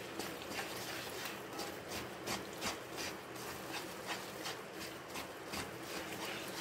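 Wooden spatula stirring and scraping thick, frothy Mysore pak mixture of gram flour, sugar and oil around a pan, in repeated irregular scrapes. The mixture is curling up, nearly at the stage to pour it out.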